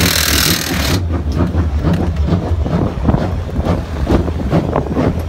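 Busy race-grid ambience: a steady low hum under a clutter of short knocks and crowd noise, with a loud hiss that cuts off suddenly about a second in.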